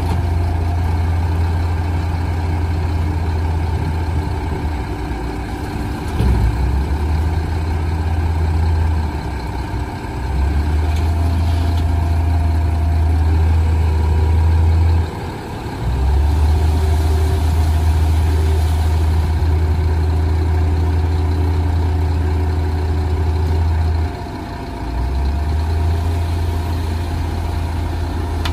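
Scania eight-wheel dump truck's diesel engine running at raised revs to drive the tipper hoist while the body rises and tips out its load of soil. The low engine note drops briefly about three times.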